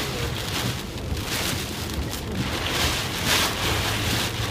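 Heavy wind-driven rain beating on a car's windshield and body, heard from inside the cabin, swelling and easing in gusts, with a low steady hum underneath.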